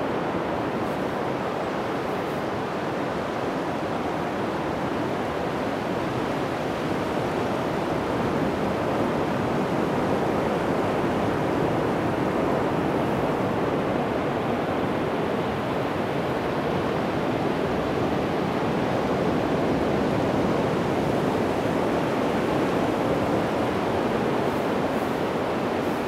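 Atlantic Ocean surf breaking on a flat sandy beach: a steady, continuous wash of waves that swells gently now and then, with no single crash standing out.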